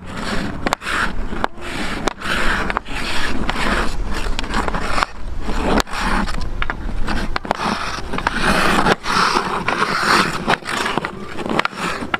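Hockey stick blade working a puck back and forth in fast figure-eights: rapid sharp taps of the blade on the puck over a continuous scraping of stick and puck across the surface.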